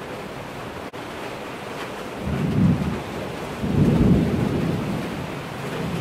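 Thunderstorm: a steady hiss of rain with two low rolls of thunder, the first a little after two seconds and the second, slightly longer, around four seconds in.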